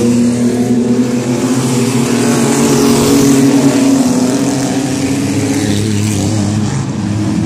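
A pack of mini-truck race trucks running laps on a short oval, several engines at racing speed at once. They grow louder as the pack passes about three to four seconds in, then ease off.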